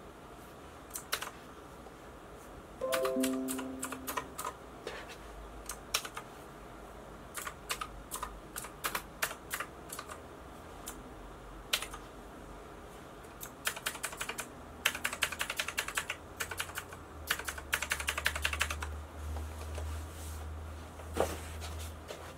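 Keys on a Micronics MANIC X48 optical-switch mechanical keyboard being pressed: scattered single clacks, then fast runs of rapid key presses in the second half.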